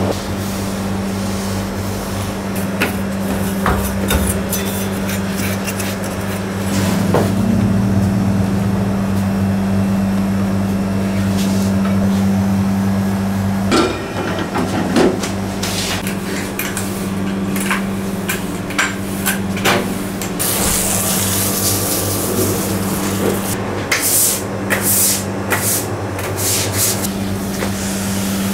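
Bakery clean-up noises over a steady low hum: clicks and knocks of metal parts as a dough sheeter's tables are folded up and handled, loudest about a third of the way in, then a hiss lasting about two seconds and more scattered clatter.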